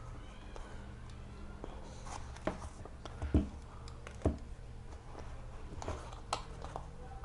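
A blunt knife sawing and scraping through a sneaker's molded foam midsole and rubber outsole: small scratchy cutting sounds broken by several sharp clicks and knocks, the loudest about three and four seconds in.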